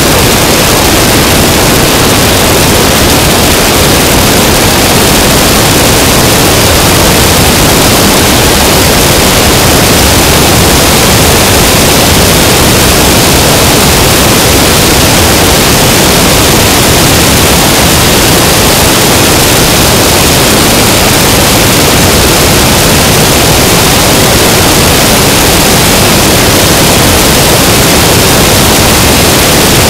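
Loud, steady rush of slipstream wind over the microphone of a camera mounted outside an Aeronca Chief light plane in cruising flight, with the engine's drone buried in the noise.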